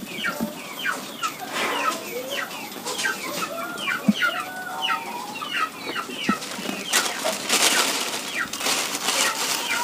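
Chickens calling, a steady run of short falling chirps several per second, with bursts of plastic-bag rustling near the end.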